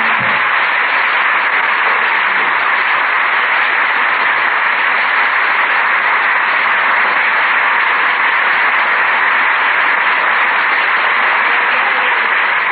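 Studio audience applauding steadily, heard through the narrow, dull band of an old radio broadcast recording.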